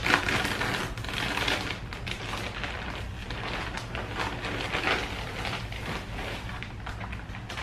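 A plastic poly mailer bag being torn open by hand, without scissors, with irregular crinkling and crackling of the plastic, loudest just at the start. A steady low hum runs underneath.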